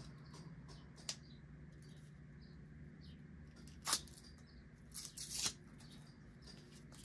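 Plastic protective film being peeled off a new GoPro Hero 12 camera: a short click about a second in, a sharp crackle near four seconds, then a longer rasping peel about five seconds in.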